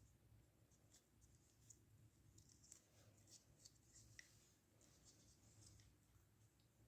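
Near silence, with faint scattered clicks and taps of small parts being handled and fitted, most of them in the middle of the stretch.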